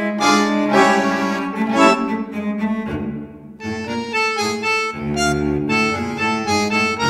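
Instrumental background music: a melody of sustained notes, dipping briefly about halfway through.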